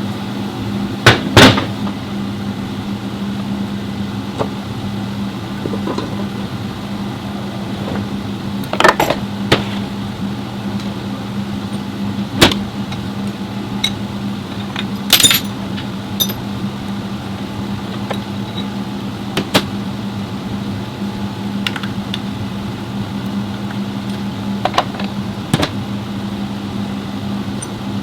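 A steady mechanical hum with scattered sharp clicks and knocks, the loudest a pair about one and a half seconds in.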